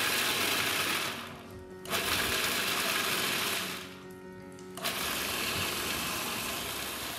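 Electric food processor chopping walnuts, run in short pulses: three bursts of a second or two each with brief pauses between. The nuts are pulsed rather than run continuously to keep them coarse, so the maamoul filling does not turn to paste.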